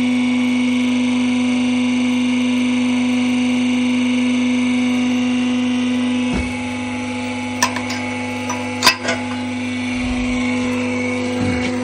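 Electric hydraulic wool press running with a steady hum as the press head is lowered onto a finished bale. About six seconds in the sound drops a little, and a few sharp metal clicks follow.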